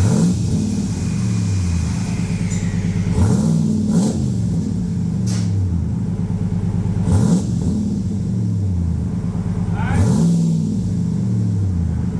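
Ram Power Wagon's 392 (6.4-litre) Hemi V8 idling through a freshly fitted dual exhaust, blipped about four times. Each rev rises and falls back to idle.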